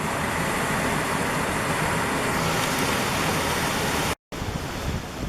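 Steady rushing of a waterfall, broken by a brief total dropout about four seconds in, after which the rush is quieter.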